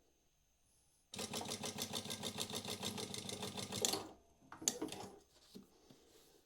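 Prosew PS-1903SX industrial walking foot sewing machine sewing out a programmed rectangle, starting about a second in with a rapid, even stitching rhythm and stopping after about three seconds. A sharp click and brief clatter follow shortly after it stops.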